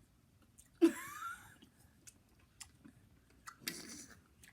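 Close-up chewing of fruit and ice, with small wet clicks, plus a short loud squeaky burst with a rising pitch about a second in and another brief noisy burst near the end.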